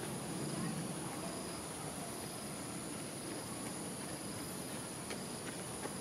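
Dusk insect chorus: a steady high-pitched buzz with faint repeating chirps, over a low background rumble. A few faint clicks come near the end.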